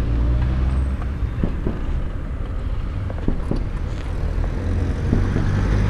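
Police motorcycle engine running as the bike rides along a street, with wind rushing past the microphone. The low engine rumble eases off about a second in and gets stronger again near the end.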